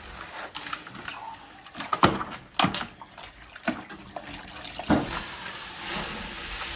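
A wet swab on a long wooden pole mopping the hot floor of a wood-fired brick oven to clear the ash before baking: water sloshing as the mop is dipped in a bucket, the pole knocking and scraping against the brick several times, and a hiss of steam as the wet cloth meets the hot hearth, strongest near the end.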